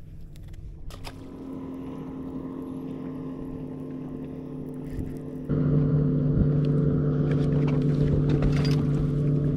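Bow-mounted electric trolling motor on a bass boat, humming steadily. About five and a half seconds in it steps up in speed and gets louder.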